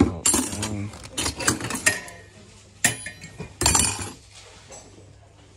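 Electroplated nickel silver (EPNS) cutlery and tableware clinking and rattling against each other as a hand rummages through a box of it, with clusters of clinks between one and two seconds in, a sharp one near three seconds and a louder clatter just before four seconds; one piece rings briefly.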